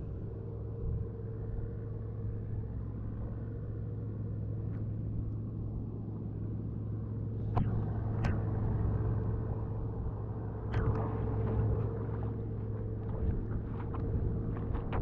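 An engine running steadily with a low, even hum, with a few short clicks and knocks over it in the second half.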